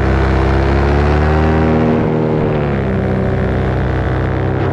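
Paramotor engine and propeller droning in flight; about two seconds in the throttle is eased back and the pitch drops to a lower, steadier drone.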